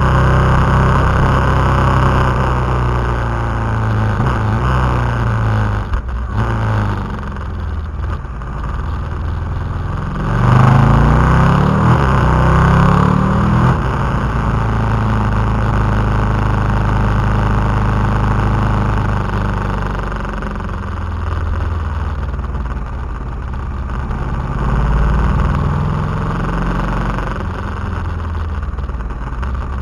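KTM 990 SMT's V-twin engine under way, its revs falling and rising through the gears. The loudest pull is a rising rev about ten seconds in.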